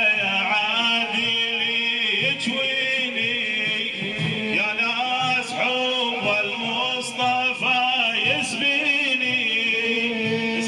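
A man singing an Arabic devotional praise poem for the Prophet in a drawn-out, wavering melody over a steady held backing tone.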